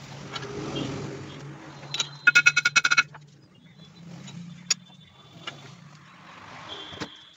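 Metal clinks and knocks from a cast-iron rotavator gearbox housing being set up by hand in a lathe chuck, with a quick rattling run of ringing metallic clinks about two seconds in and a few single clicks later, over a steady low hum.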